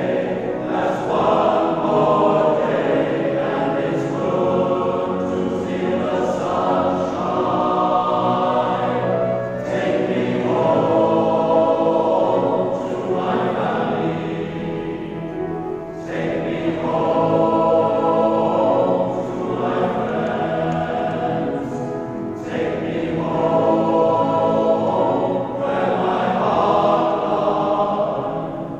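Male voice choir singing in a cathedral, in sustained phrases that swell and ease back every few seconds.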